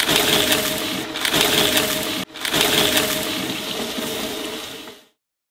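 Twin-shaft shredder running with a steady motor hum while its cutter discs tear through paper toy banknotes, in several loud crunching, ripping surges. The sound drops out for an instant a little past halfway and cuts off shortly before the end.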